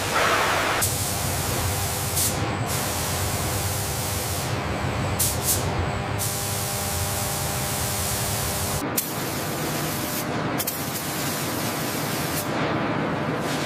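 Steady hiss of paint spraying over a low machinery hum in a factory hall. The sound shifts abruptly several times.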